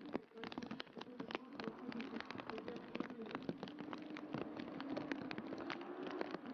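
Car engines running on a drag-strip start line, a steady hum that slowly rises in pitch. Over it comes a dense patter of sharp ticks from rain.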